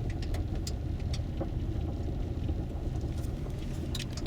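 Car driving, heard as a steady low rumble of engine and road noise with scattered light clicks.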